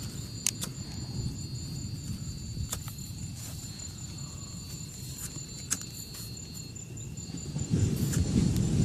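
Low, steady rumble of the sea surf with a steady high-pitched insect trill over it and a few scattered sharp clicks; the surf swells louder near the end.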